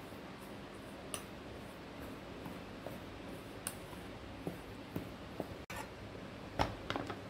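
A steel spoon mixing dry rice flour in a stainless steel bowl: soft scraping with scattered light clicks of the spoon against the bowl, the loudest few close together near the end.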